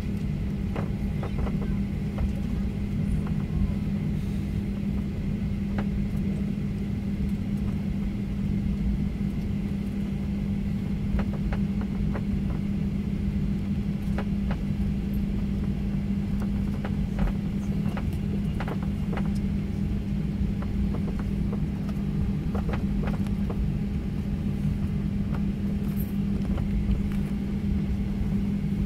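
Cabin sound of a Boeing 737-900 taxiing: its CFM56-7B engines at idle thrust giving a steady low hum over a rumble, with scattered faint clicks and knocks.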